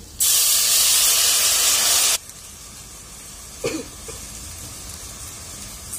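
Spiced oil and masala sizzling hard in a hot kadai: a loud hiss for about two seconds that stops abruptly, then a faint steady sizzle.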